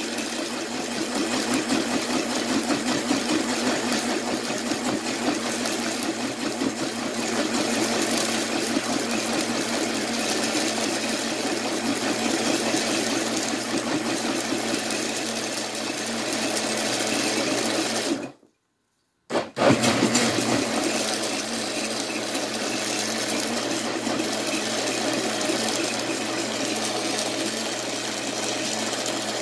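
Hamilton Beach personal blender running steadily as it purées soaked sea moss and distilled water into gel. The motor stops for about a second just past the middle, then starts again.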